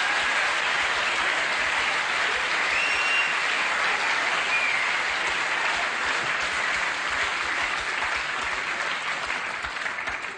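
Large audience applauding steadily in a hall, the clapping dying down near the end.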